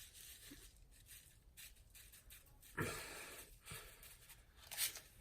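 Mostly quiet room with a few faint, brief rustling or handling noises, one about three seconds in and another near the end.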